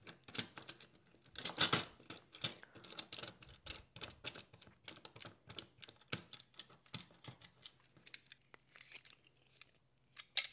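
Small stainless-steel 90-degree corner clamp being wound by its threaded knob and fitted onto two boards: quick light metallic clicks and rattles from the screw and jaws, with a louder clatter about one and a half seconds in, thinning out near the end.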